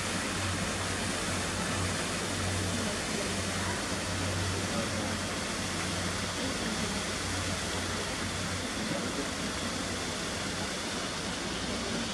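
Steady, even rushing noise with a low hum underneath; no distinct footsteps or calls stand out.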